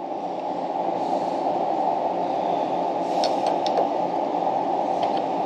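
Steady low rushing background noise, with a few faint clicks about three seconds in and again near the end.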